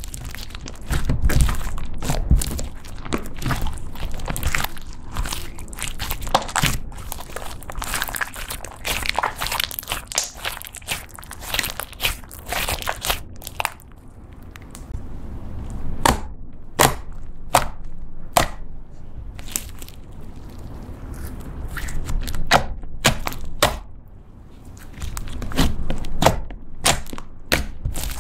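Soft pink slime squished, stretched and pressed by hand, giving wet sticky squelches and many sharp pops and clicks, as borax activator is worked in to firm up slime that had gone too soft. The popping is dense through the first half, then comes as separate sharp pops.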